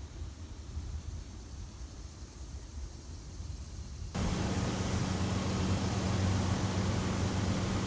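Low wind rumble, then about four seconds in a sudden switch to a much louder freight train: a diesel locomotive running close by with a steady low hum.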